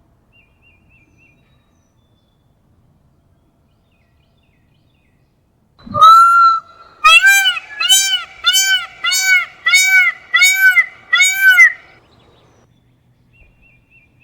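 Peacock calling: one loud call about six seconds in, then a quick run of about nine loud calls, each rising and falling in pitch, about two a second, stopping about twelve seconds in. Faint small-bird chirps before and after.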